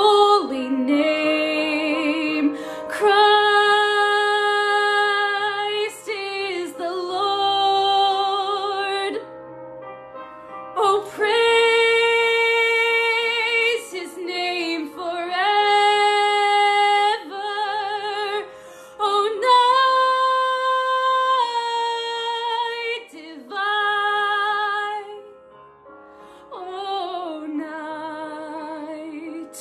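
A woman singing solo in a slow, lyrical style: phrases of long held notes with vibrato, separated by short breaks for breath.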